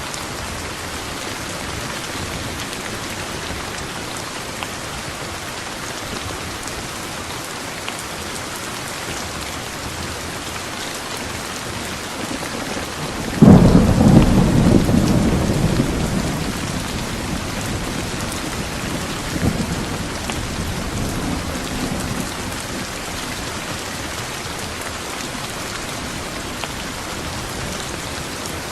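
Steady heavy rain hissing, with a sudden loud thunderclap about halfway through that rumbles and fades over several seconds, followed by a weaker roll of thunder.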